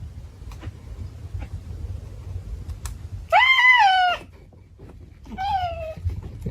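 An animal crying out twice, high-pitched: a longer call about three seconds in that rises then falls, and a shorter call that falls in pitch near six seconds.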